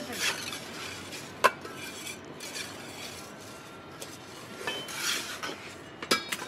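A hand trowel scraping and spreading wet cement across a tile mould, with sharp metallic clinks of the tool striking the mould about a second and a half in and again near the end.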